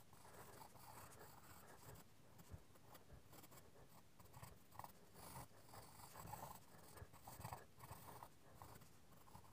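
Faint scratching of a graphite pencil on sketching paper, shading in many short, uneven strokes.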